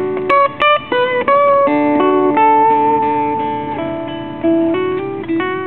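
Acoustic guitar played slowly, single plucked notes and chords ringing on, a new note or chord every half second to second.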